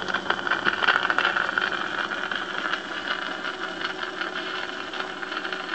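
Surface noise of a 1905 Edison Gold Moulded wax cylinder playing on a Columbia BF Peerless Graphophone: a steady hiss thick with crackles and pops, heard through the aluminum horn muted with tissue paper, with a steady hum underneath. This is the unrecorded run-in groove before the recording starts.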